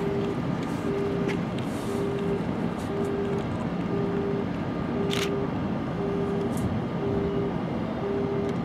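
An electronic beeper sounding steadily, one short tone about every second, over the general noise of a rail yard, with a sharp click about five seconds in.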